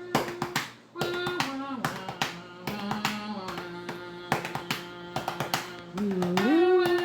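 A theremin playing held notes that slide up and down between pitches. Many sharp clicks and taps sound throughout.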